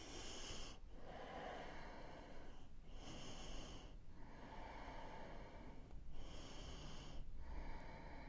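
A woman breathing slowly and deeply through the nose, about three full breaths: each a short, hissy breath followed by a longer, lower one. The sound is faint.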